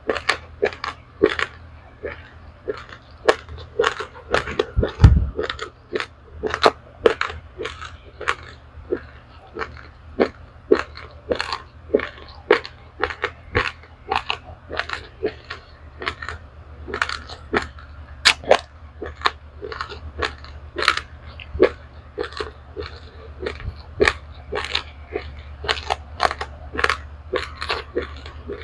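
Close-up crunching and chewing of dry roasted raw rice grains: crisp, brittle crunches a few times a second, steady through the whole stretch. A dull low thump stands out about five seconds in, over a faint steady low hum.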